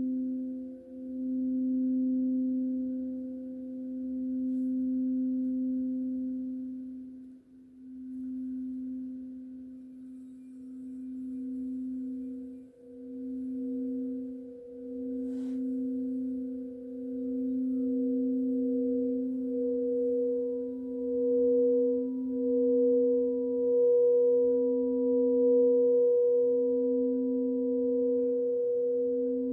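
Frosted quartz crystal singing bowls rimmed with mallets. A low, steady ringing tone dips briefly every few seconds as the mallet circles. A higher bowl tone swells louder through the second half, and a faint still higher tone joins about two-thirds in.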